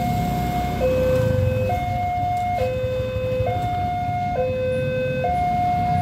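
Railroad level-crossing alarm sounding its two-tone warning, a higher and a lower tone taking turns just under a second each, while the boom barrier comes down to close the road for an approaching train.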